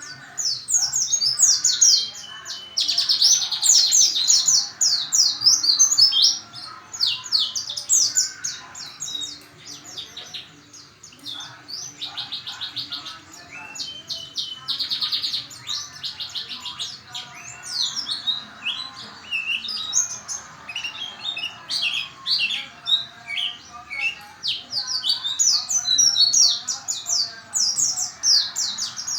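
White-eyes (pleci) singing: a fast, continuous run of high twittering chirps with several rapid trills.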